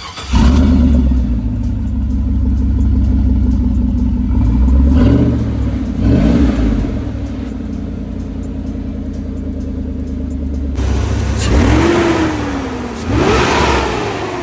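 Chevrolet Silverado pickup's V8 engine and exhaust with an aftermarket muffler tip, firing up just after the start, idling, and blipped up and back down four times, the last two revs higher. It is a stock-intake baseline of the exhaust note before a cold air intake is fitted.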